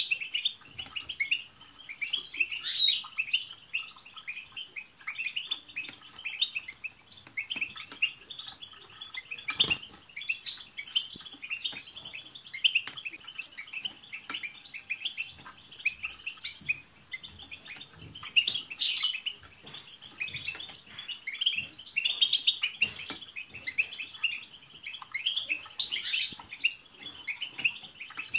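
Several European goldfinches singing at once: continuous rapid twittering of trills and chirps, with thin high notes now and then. There is one sharp click about ten seconds in.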